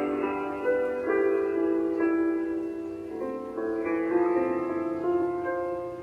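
Slow instrumental sleep music: long held notes, with new chords coming in every second or so.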